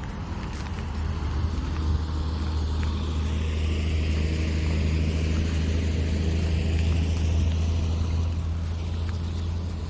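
A motor vehicle passing on the road, growing louder over several seconds and easing off near the end, over a steady low rumble.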